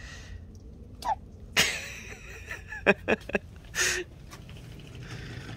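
A small child's short wordless sounds close by: a brief rising squeak about a second in, then breathy, hiccup-like bursts, with a few sharp clicks in between.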